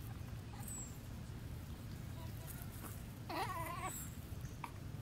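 A young macaque gives one short, wavering cry about three seconds in, a distress call while a bigger macaque pins it down and bites it. A steady low rumble runs underneath.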